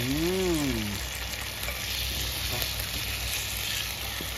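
Canned fish frying in hot oil with chili paste in a wok, sizzling steadily while a metal ladle stirs it. A brief voiced sound that rises and falls in pitch comes in the first second.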